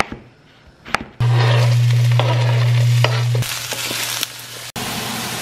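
A knife chopping through summer squash on a cutting board, a chop at the start and another about a second in. Then mushrooms, zucchini, squash and sun-dried tomatoes are sizzling loudly in a wok as they are stirred with a wooden spoon, over a steady low hum.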